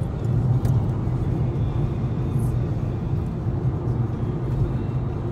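Steady road and engine noise inside a car's cabin at highway speed, a low even hum.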